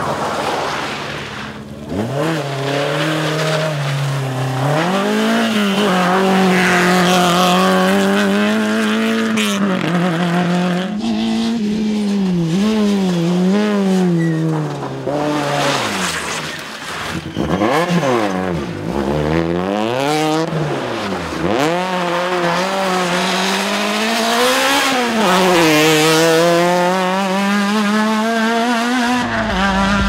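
Small front-wheel-drive rally hatchbacks passing one after another at full throttle, their engines revving hard, the pitch climbing and then dropping sharply again and again with each gear change and lift for a corner.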